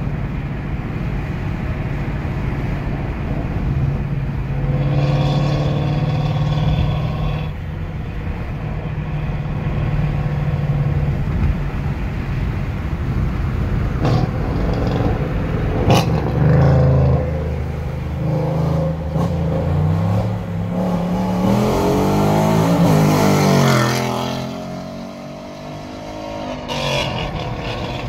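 2018 Ford Mustang GT's 5.0 Coyote V8, a manual with resonators and catalytic converters deleted, accelerating hard, heard from inside a following car. In the second half the revs climb repeatedly through the gears, falling back at each shift, with a sharp snap about sixteen seconds in.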